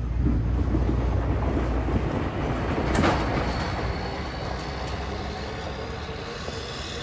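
Motor grader driving past on a gravel road: a heavy diesel rumble with rattling. There is a sharp clank about three seconds in, and the sound fades as the grader moves off.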